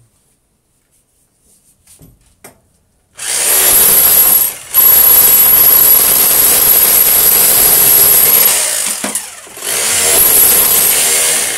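A corded electric power tool running hard in three stretches, easing off briefly twice, its motor giving a steady high whine over a broad rasping noise.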